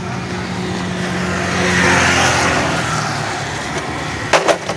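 A motor vehicle passing on the wet street: its tyre hiss swells and fades about two seconds in, over a steady engine hum. Near the end come two sharp knocks.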